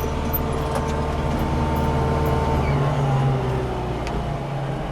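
Landini Blizzard 65 tractor engine running, heard from inside the cab, with a thin steady whistle over it for the first half. The whistle stops and the engine note drops about halfway through. The driver first took the whistle for the turbocharger and later traced it to a squeaking gear lever.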